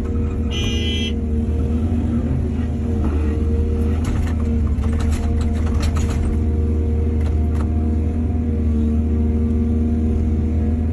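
Excavator's diesel engine running steadily under load, with a brief high-pitched tone about half a second in and scattered knocks and clatter through the middle.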